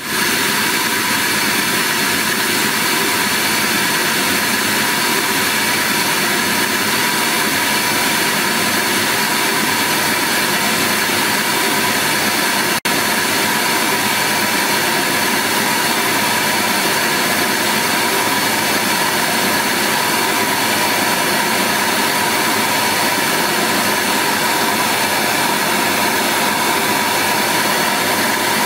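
Russian Bass M165RBF 16.5 cm pro midrange speaker playing a steady test noise, a constant even rush with little deep bass, for a loudness measurement reading about 75 dB. It cuts out for an instant about thirteen seconds in.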